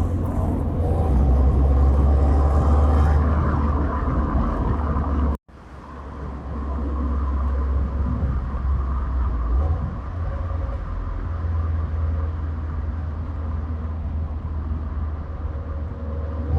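Subaru WRX STI's EJ257 turbocharged 2.5-litre flat-four running with a steady low rumble. It drops out abruptly for a split second about five seconds in, then builds back up.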